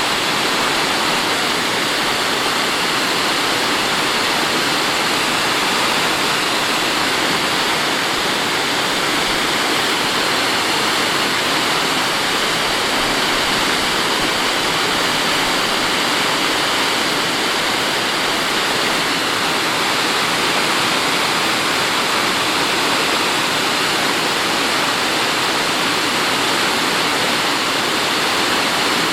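Mountain stream rushing over rocks, a steady loud splashing and rushing of water.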